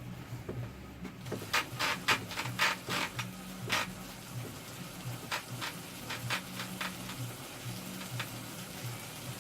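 A series of short rasping strokes, about eight in quick succession, then a few sparser ones, over a low steady hum.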